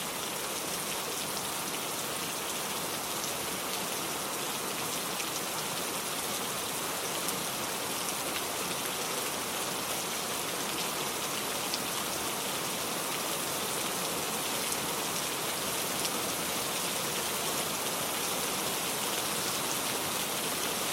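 Steady heavy rain: an even hiss of falling rain with scattered individual drops ticking on a surface.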